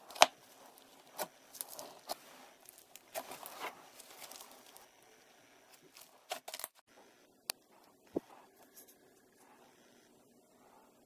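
Fingers poking and squeezing soft slime: a string of sharp sticky pops and crackles, the loudest just after the start, then sparser and quieter in the second half.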